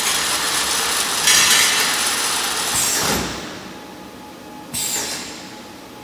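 CNC angle steel flange welding machine working its cycle: a loud hissing, clattering stretch of about three seconds that ends in a falling sweep, then a quieter stretch and a second short hissing burst with a falling sweep about five seconds in.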